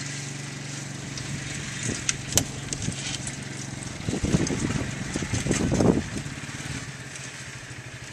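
Four-wheeler ATV engine running steadily at low speed while towing a roping dummy, with a sharp click about two and a half seconds in and a louder rough noise about four to six seconds in.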